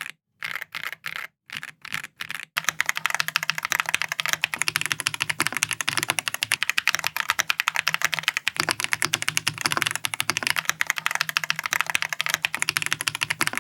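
Keychron Ultra mechanical keyboard being typed on: a few separate keystrokes, about three a second with silent gaps between them, then from about two and a half seconds in, fast continuous typing.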